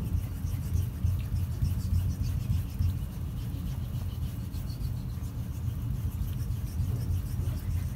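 Thiers Issard straight razor stroked back and forth on a wet Norton 8000-grit waterstone, a rhythmic rubbing scrape, as the edge is honed back after being deliberately dulled. A steady low rumble runs underneath.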